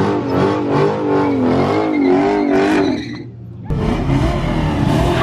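A car engine held at high revs during a burnout, its pitch wavering up and down over spinning tyres. After a brief dip, the sound changes abruptly to a deeper, rougher engine and tyre noise.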